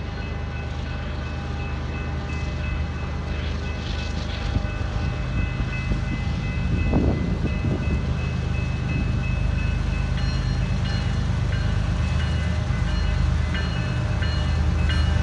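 Approaching BNSF freight train, its diesel locomotives rumbling louder and louder as they near. Steady high-pitched ringing runs above the rumble, typical of grade-crossing signal bells.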